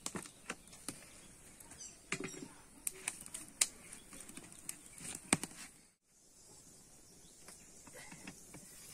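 Irregular clicks and knocks from a small open wood fire, with sticks and a pan being handled on it, and a brief bird chirp about two seconds in. After a cut about six seconds in there is only a quieter, steady hiss.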